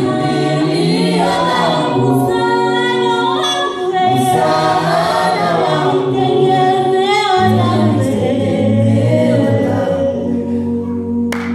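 Vocal group of men and women singing gospel a cappella through microphones, holding sustained chords in harmony, with a woman's voice leading. A few sharp clicks sound just before the end.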